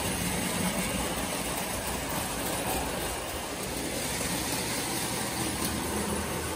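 A 1929 Lionel standard gauge coal train running on its metal track: a steady electric-motor hum and rolling rumble.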